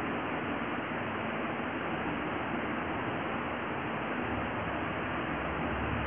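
Steady, even hiss with no distinct events: the recording's background noise.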